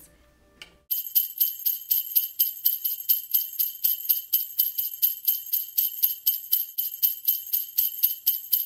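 Jingle bells (sleigh bells) shaken in a fast, even rhythm, starting about a second in.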